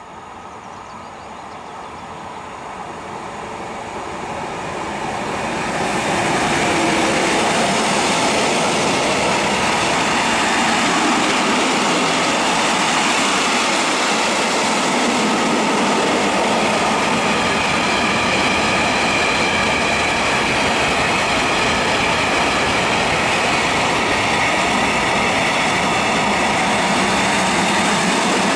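Bombardier Traxx E186 electric locomotive hauling a freight train of tank wagons approaches, growing louder over the first six seconds. The loaded tank wagons then roll past close by with a steady loud noise of wheels on rails.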